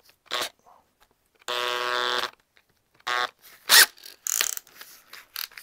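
Cordless drill with a brass wire brush fitted, run in two short bursts: a whine of just under a second about a second and a half in, then a brief blip around three seconds. Sharp knocks and clicks of the tool being handled against metal come in between, the loudest a little before four seconds.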